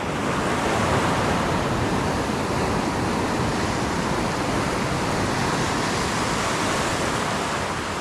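Sea surf washing steadily along the shore.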